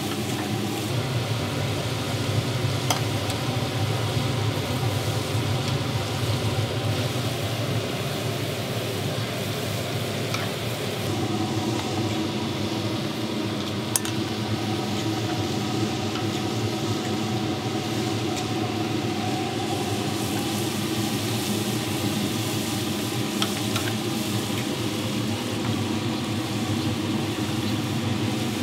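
Hotteok deep-frying in a griddle pan of bubbling hot fat: a steady, continuous sizzle, with a few light metal clicks from the presses and tongs.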